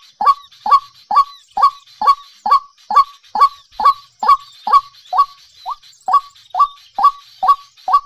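White-breasted waterhen calling: one harsh note repeated at a steady rate of about two a second, each note falling in pitch, with one weaker note a little past the middle.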